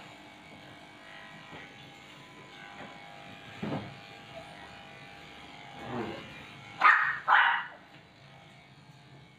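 Cordless electric dog clippers buzzing steadily as they shave a matted Shih Tzu's coat. About two-thirds of the way in, a dog barks twice in quick succession, the loudest sound.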